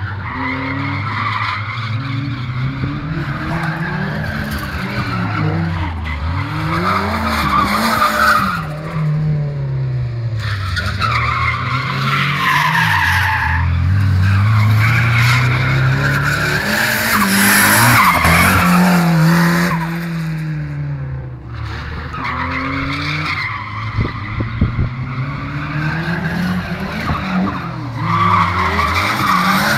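Cosworth-engined BMW E36 drifting: the engine revs rise and fall again and again as the throttle is worked, with the tyres squealing and skidding on the tarmac. The tyre squeal is loudest in the middle of the run, from about eleven to nineteen seconds in.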